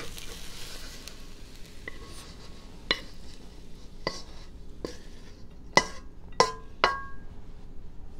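A faint pan sizzle dies away in the first second. Then about half a dozen sharp clinks and taps of cookware and utensils against a ceramic plate follow as the fried rice is plated, a few with a brief ringing.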